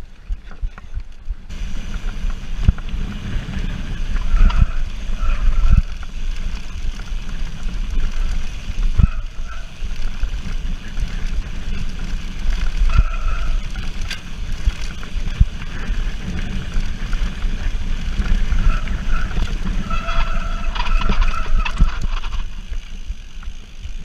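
Mountain bike rolling fast over a rough dirt trail, picked up by a handlebar-mounted action camera: a steady rumble of tyres and wind with frequent rattles and knocks from the bike, and a few brief squeals. It starts about a second and a half in, quieter before.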